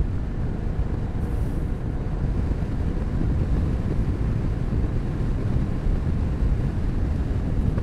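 Motorcycle riding along, heard from a rider-worn microphone: a steady low rumble of wind buffeting and engine noise, with a faint steady tone in the middle.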